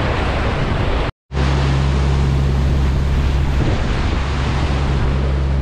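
Wind buffeting the microphone and water rushing in the wake of a trawler under way, over the steady low drone of its Cummins 6BT diesel engine. The sound breaks off completely for a moment about a second in, then carries on.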